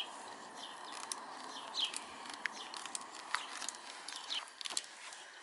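A bird chirping in short, falling calls at irregular intervals over a faint steady hiss, with a couple of soft clicks.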